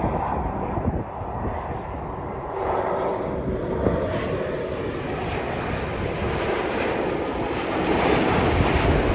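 Boeing 787-8 Dreamliner jet airliner on final approach with its landing gear down, its twin jet engines running steadily and getting louder towards the end as it comes closer.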